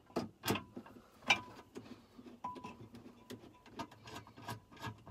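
Irregular light clicks and taps of a bolt and fingers against a metal console safe as the bolt is worked into its hole and started by hand.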